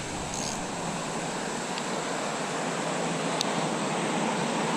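Steady rushing of a flowing stream, with a faint click about three and a half seconds in.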